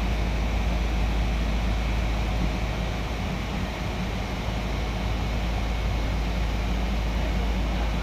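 Steady rushing hum with a low rumble from air-conditioning outdoor units running close by.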